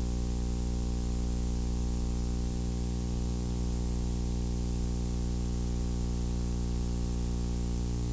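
Steady electrical hum with a stack of overtones over a constant hiss, unchanging throughout.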